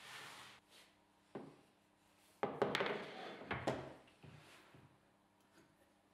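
Wooden shop accessories handled on a band saw's HPL-topped table: a short sliding rub as a sled runs in the table groove, a single knock, then about a second and a half of clattering knocks and scraping as a tall fence is set down and positioned, with a few light clicks after.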